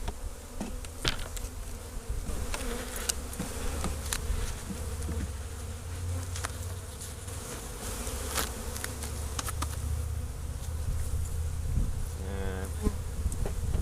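A honeybee colony buzzing steadily around an open hive, with scattered light clicks and knocks as the wooden hive parts are handled and fitted back together.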